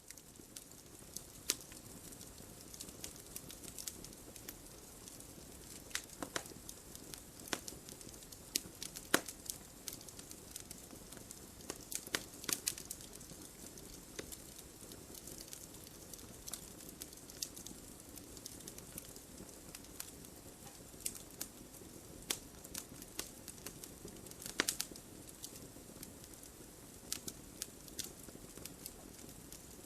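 Wood fire crackling: irregular sharp pops and snaps over a steady soft hiss, with a few louder pops about 6, 9, 12 and 25 seconds in.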